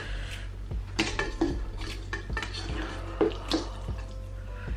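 Metal forks clinking and scraping against bowls as noodles are twirled and lifted, a handful of irregular sharp clinks.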